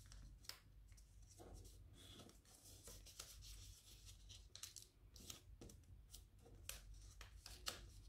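Faint rustling and crinkling of a small sheet of origami paper being folded and creased by hand, in short scattered crackles.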